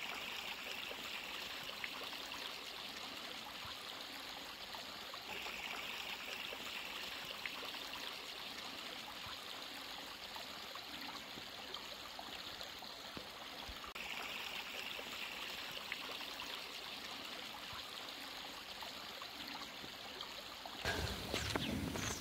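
Steady rush of a shallow stream of running water. About a second before the end, a louder, fuller noise cuts in.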